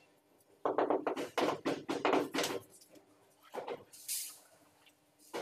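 Rapid tapping on a large ceramic floor tile to bed and level it in the mortar, about four to five taps a second for two seconds. A few softer knocks and a single thump follow.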